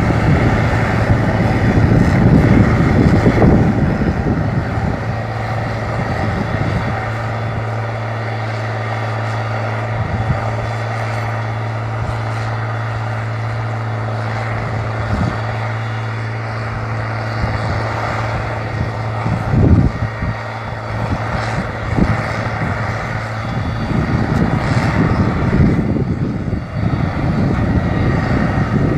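Turbocharged diesel engine of a Valtra BH 180 tractor, running loud at first, settling into a steady low hum from about five seconds in, then loud again near the end.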